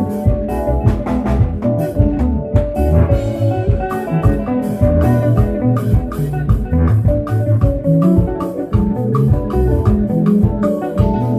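Loud instrumental dance music: quick plucked melodic lines over a steady, busy drum beat.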